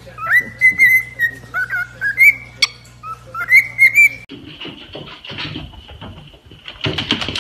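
Cockatiel whistling a string of short whistles, some rising and some held level, for about four seconds. The sound then changes to a noisier stretch with a faint steady high tone and a run of quick knocks near the end.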